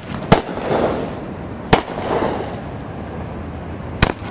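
Fireworks going off: three sharp bangs, roughly a second and a half to two seconds apart, with a rough rushing hiss between them.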